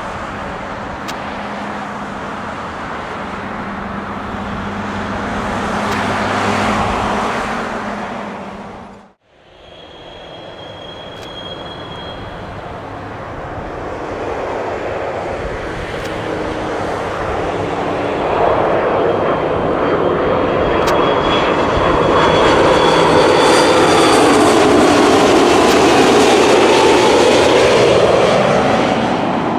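Airliner engines running loud. They cut off abruptly about nine seconds in, then the engine noise builds steadily with sweeping, shifting tones as a plane passes, loudest near the end.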